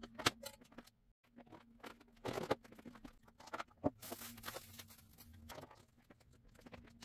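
Scattered light knocks, clicks and rustles of plastic food containers and dishes being handled and set down on a shelf, over a faint steady low hum.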